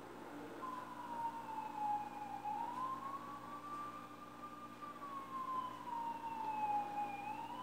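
Emergency vehicle siren in a slow wail, its pitch gliding down, up and down again over several seconds; it starts about half a second in.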